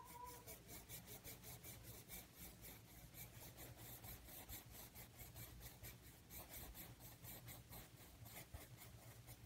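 Colored pencil scratching on paper in quick, faint back-and-forth shading strokes, about four or five a second.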